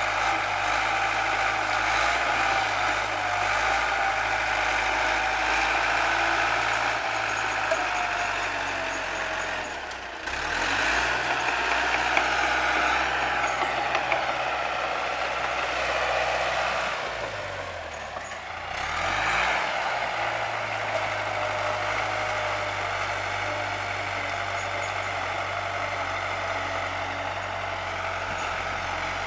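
Bulldozer's diesel engine running steadily, its pitch dropping and picking back up twice, about a third and about two thirds of the way through, as the machine is throttled and loaded while pushing brush.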